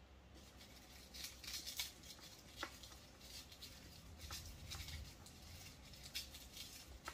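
Faint, irregular scraping and clicking of garlic cloves being crushed in a small garlic crusher.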